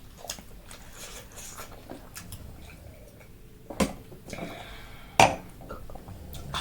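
Eating utensils clinking and knocking against dishes: scattered light taps, with two sharper knocks about a second and a half apart near the middle, the second the louder.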